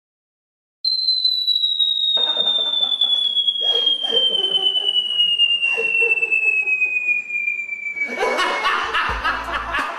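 A long whistle sliding steadily down in pitch for about seven seconds, the cartoon falling sound effect, over a man laughing that starts about two seconds in. Near the end, music with a deep beat comes in.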